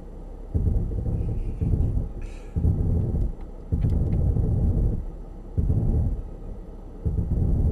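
Brake pads rubbing against the discs of a Mercedes-Benz GL-Class as its electronic descent control brakes the wheels down a steep, slippery slope. The low rumbling grind comes and goes in about six surges as the system grips and releases, a sign that the wheels are still turning and the car is being held.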